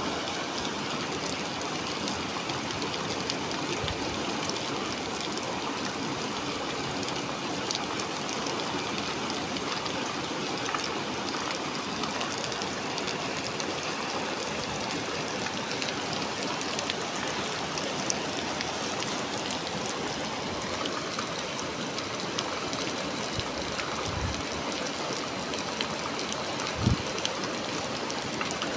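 Heavy storm rain heard from inside a café, a steady hiss of rainfall with many fine drop ticks. A short low thump sounds near the end.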